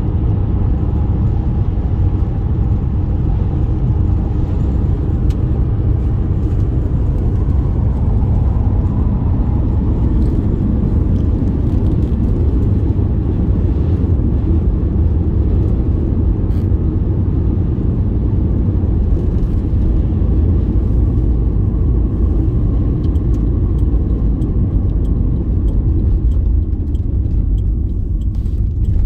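Steady low rumble of a car in motion, engine and road noise, with a few light clicks in the second half.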